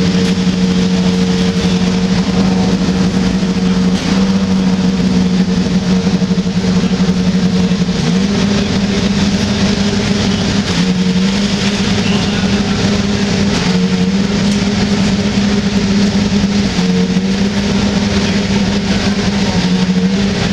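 An engine running steadily at one low pitch over a wash of background noise, with a few brief dips and small shifts in pitch.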